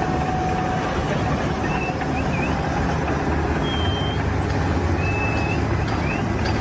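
Heavy construction machinery running: a loud, steady rumble, with a few brief high squeaks over it.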